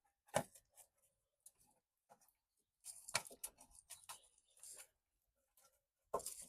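Faint, scattered clicks and light scraping from hand work around the car battery and its tray: a single sharp click less than half a second in, then a cluster of small clicks and scrapes in the middle.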